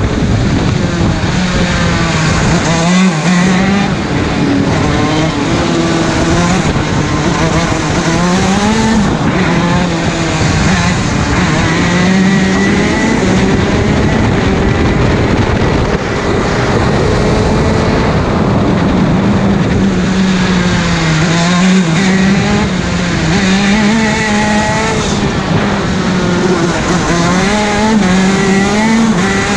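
125 cc two-stroke KZ shifter kart engine heard onboard at racing speed, its revs rising and falling again and again through the lap, with short drops in pitch about three seconds in and again about twenty-one seconds in.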